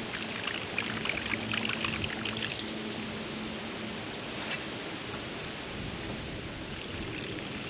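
Water splashing and trickling around a kayak while a hooked fish thrashes at the surface: a cluster of short crackling splashes in the first two and a half seconds, then a steadier wash of water.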